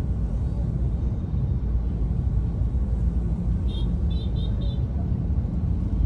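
Steady low rumble of a car creeping forward at walking pace, heard from inside the cabin. About two-thirds in, four short high chirps sound in quick succession.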